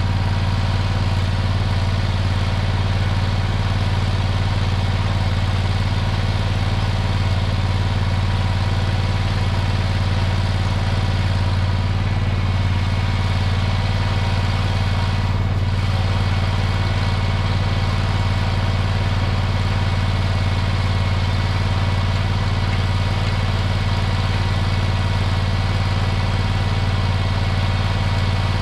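An engine idling at a steady, unchanging speed, with a strong low hum.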